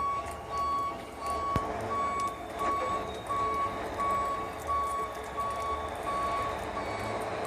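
A vehicle's reversing alarm beeping steadily, about one and a half beeps a second, over a low engine rumble, with a sharp knock about one and a half seconds in.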